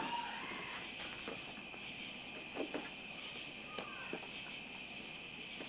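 Crickets chirping steadily in a night-time chorus, with a few faint knocks.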